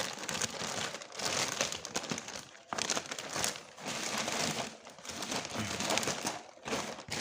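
Plastic zipper-pouch packaging crinkling and rustling in irregular bursts as it is opened and a backpack is worked out of it.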